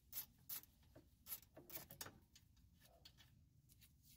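Near silence with faint scattered clicks, about three a second for the first two seconds and sparser after: a 14 mm socket and ratchet being handled on the rear brake caliper bracket bolts.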